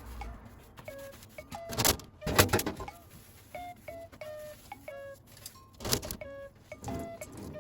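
Background music of short, repeated plucked-sounding notes, with two loud noisy bursts of work noise, one about two seconds in and one about six seconds in.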